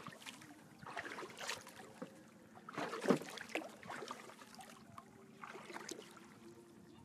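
Water splashing and sloshing against a wooden boat's hull as it is paddled, in a few uneven bursts, the loudest about three seconds in.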